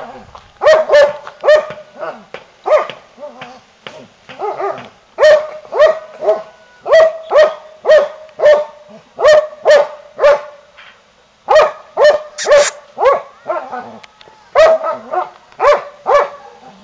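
A dog barking over and over, about two barks a second, in runs with a few short breaks.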